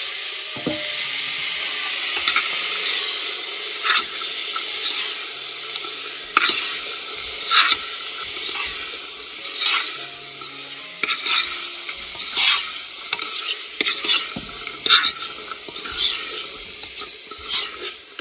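Kidney beans and onion paste frying in oil in an open pressure cooker, sizzling steadily, while a spoon scrapes and knocks against the pot as they are stirred. The stirring strokes come more often in the second half.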